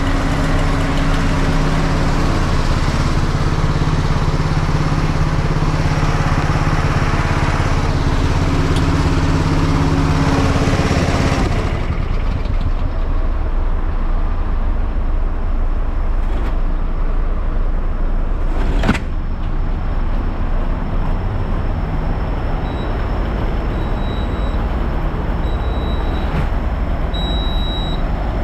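Fire truck's diesel engine running with a steady drone; a little before the middle its higher, louder tone drops away, leaving a low rumble. A sharp click follows, and in the last quarter short high beeps repeat about every second and a half.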